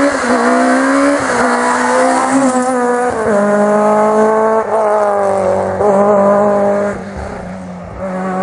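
Peugeot 106 rally car's engine revving hard under acceleration, its pitch climbing and falling back at each of several gear changes. It gets quieter near the end as the car draws away.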